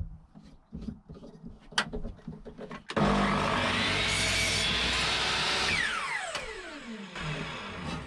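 A few light knocks of timber being handled, then an electric power saw starts, cuts through a wooden batten and is released, winding down with a falling whine.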